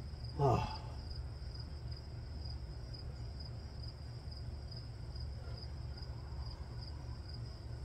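Crickets chirping in a steady, evenly pulsing high trill, over a low steady rumble.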